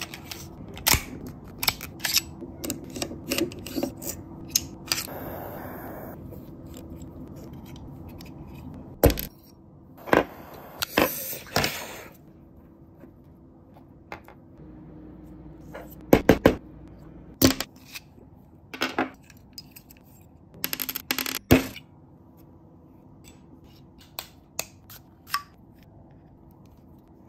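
All-steel GBLS Colt 1911A1 gas blowback airsoft pistol being taken apart by hand: scattered sharp metallic clicks and clinks of parts coming loose, with a few short scrapes of metal sliding on metal.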